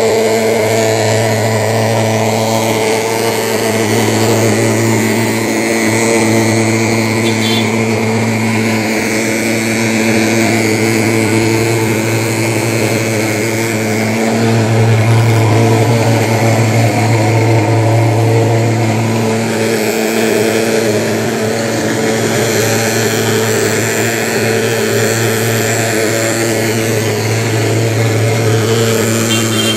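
Handheld pulse-jet thermal fogging machine running, a loud steady buzzing drone as it pumps out thick fog. It swells slightly about halfway through.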